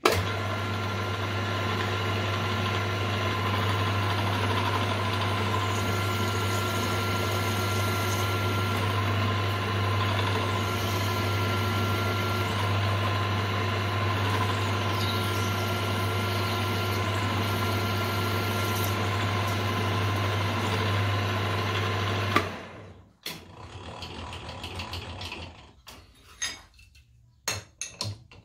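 Benchtop milling machine running steadily with a drill bit in the chuck, a constant motor hum under a few steady whining tones, for about twenty seconds before it is switched off with a click. Afterwards come a few light metal clinks as a wrench is handled.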